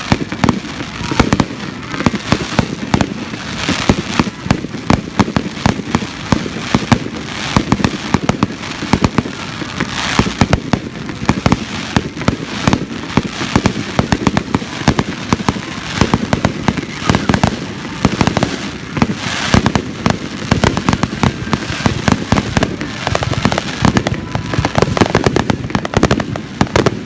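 Fireworks display: a continuous, dense barrage of sharp bangs and crackles from aerial shells going off in quick succession.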